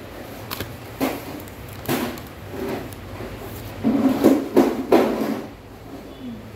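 Paper french-fries bag crinkling in several short bursts as it is handled and fries are pulled out, loudest in a cluster about four seconds in.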